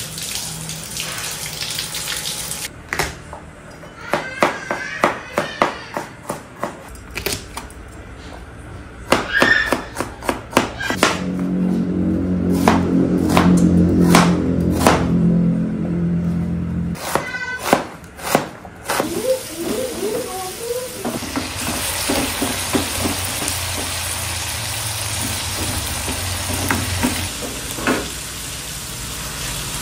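Kitchen work sounds under soft background music: a run of sharp knife taps on a cutting board as an onion is chopped, then a steady hiss in the second half from the pot and stove.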